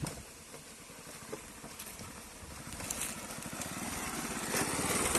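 Motorcycle engine running with an even low pulsing, growing louder toward the end.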